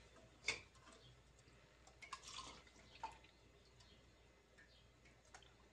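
Near silence with a few faint drips and light taps as a small plastic cup scoops liquid gelatin from a saucepan.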